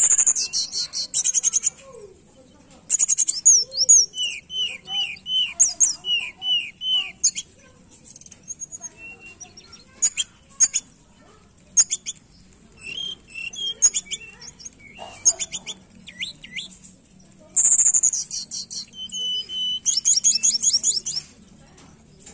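A caged tledekan gunung singing. Phrases of fast, high chirps and trills alternate with runs of repeated slurred whistles, with short pauses between phrases. This is the kind of song played as a lure to get a reluctant bird of the same kind to sing.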